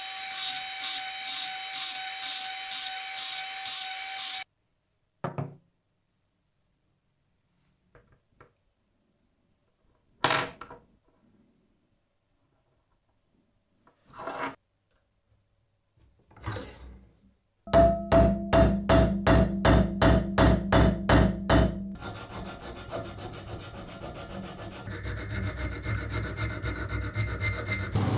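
Hand abrasive work on the parts of an antique coffee grinder: rhythmic back-and-forth rubbing strokes, like sanding or filing, about two to three a second. The strokes come in separate runs with a few short single scrapes between, and near the end they turn into faster, denser scraping.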